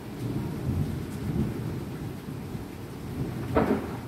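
Thunderstorm: thunder rumbling low and continuously with rain, and a sharper, louder clap of thunder about three and a half seconds in.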